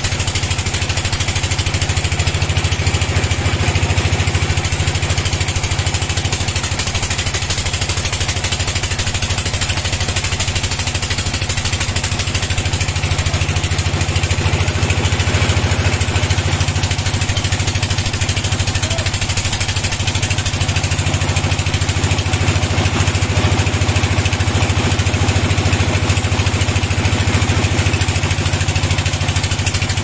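An engine running steadily at a constant speed, with a strong low hum.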